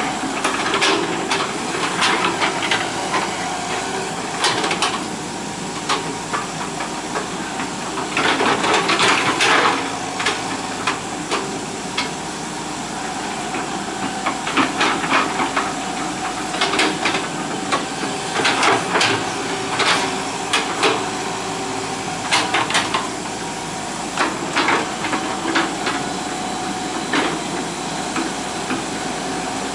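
Hitachi EX120 excavator at work: its diesel engine runs steadily under a constant tone while the bucket clanks and scrapes in clusters every few seconds, busiest around eight to ten seconds in.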